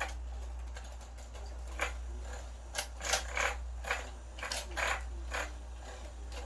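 Irregular scratchy clicks and rustles, several in quick bunches, as cats bat and scramble after a toy bird, with a steady low hum underneath.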